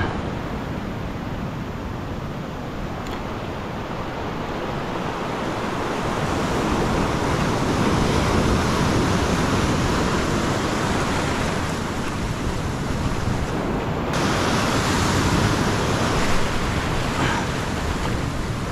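Ocean surf breaking and washing over a rocky reef shelf, a steady rushing wash that swells twice as bigger waves roll in.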